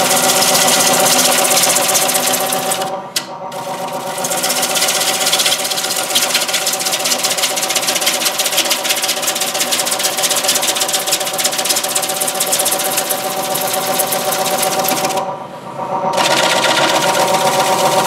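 Wood lathe running while a 5/8-inch gouge cuts the face of a spinning basswood platter: a steady hiss of shavings over the lathe's hum. The cutting hiss breaks off briefly twice, about three seconds in and again about fifteen seconds in, as the tool leaves the wood, with only the lathe's hum left.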